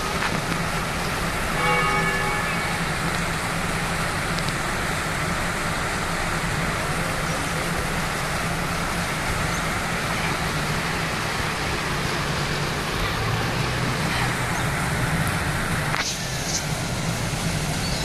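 A single tower bell of the Swan Bells struck once about two seconds in and ringing out briefly, then a steady hiss and low hum of the surroundings, with one short knock near the end.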